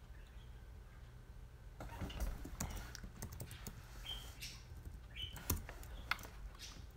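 Quiet, irregular clicks and taps on a computer keyboard, starting about two seconds in, with a couple of brief high squeaks among them.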